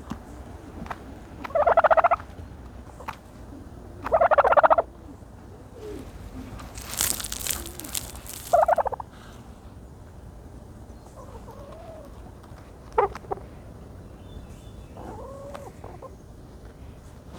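Turkey dust-bathing and giving short, rattling calls, three loud ones in the first nine seconds and fainter softer ones later. A brief rustling scuffle comes about seven seconds in.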